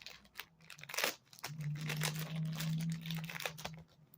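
Plastic packaging crinkling and rustling as it is handled, in irregular crackles. A low steady hum sounds for about two seconds in the middle.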